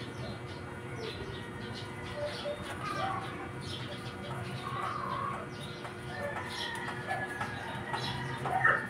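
Birds chirping and calling in short repeated notes, over a faint steady low hum.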